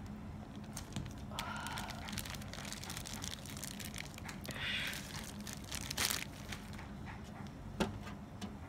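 Thin plastic bag crinkling and rustling as it is handled and crumpled, in irregular crackles, with two sharper clicks about six and eight seconds in.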